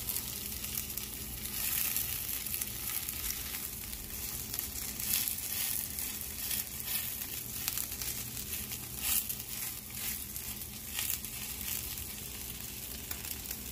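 A bánh xèo, a thin Vietnamese rice-flour pancake filled with shrimp and squid, sizzling steadily in hot oil in a nonstick pan, with frequent small crackles as its thin lacy edges fry crisp.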